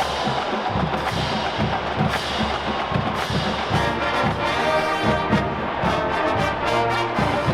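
Marching band playing: brass chords over a steady beat from the drumline.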